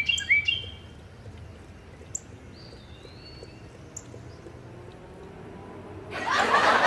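Small birds chirping outdoors: a few short chirps at the start, then a faint stretch with only scattered calls. Near the end a loud rushing noise swells up, with quick repeated chirps over it.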